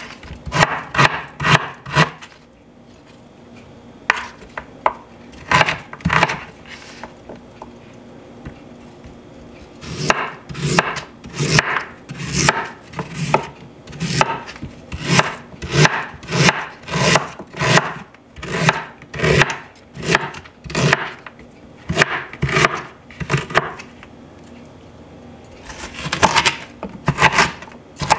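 Chef's knife chopping peeled ginger root on a wooden cutting board: runs of sharp knocks, the longest at about two strokes a second, broken by a few short pauses.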